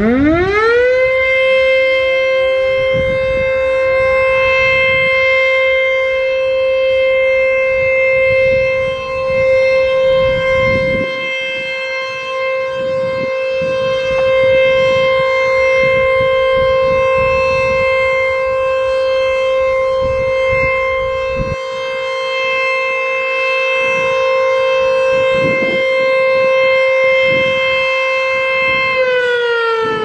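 ACA Screamer S-2 outdoor warning siren winding up fast to a single steady tone and holding it as a short steady alert during a test, then beginning to wind down in pitch near the end.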